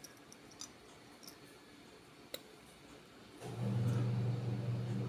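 A few faint, sharp clicks from the small plastic parts and contacts of a two-pole wall switch being handled. About three and a half seconds in, a steady low hum at one pitch starts and lasts nearly two seconds.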